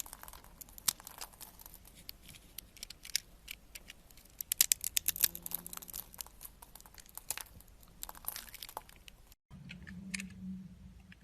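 A knife carving a bar of soap: many crisp crackling scrapes and snaps as the blade cuts through, thickest about four to five seconds in. After a brief break near the end, a faint low hum comes in under a few more cuts.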